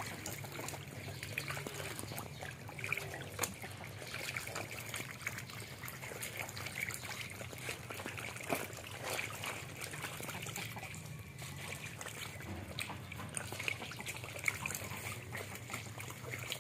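Water trickling steadily, with many small splashes and clicks scattered throughout and a low steady hum underneath.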